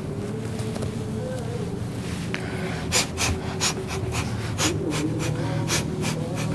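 Trigger spray bottle squeezed again and again, a run of short hissing sprays starting about three seconds in, over a low steady hum.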